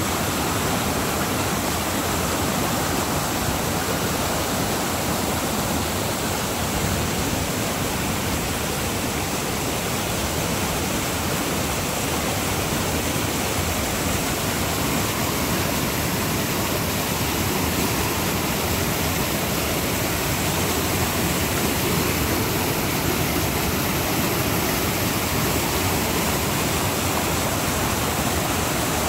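Rain-swollen creek rushing steadily through rapids, its floodwater running high after heavy rainfall.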